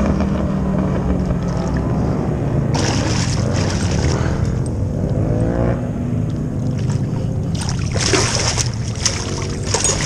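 Motorboat engine running steadily, its pitch rising and falling midway. Splashing near the end as a hooked garfish thrashes at the surface.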